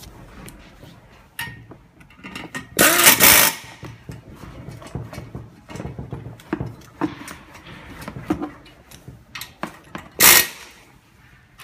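Handheld pneumatic driver running screws into the metal side frame of an auditorium chair, in two short runs of the air motor: one about three seconds in and a shorter one near the end. Knocks and clinks of metal parts being handled come in between.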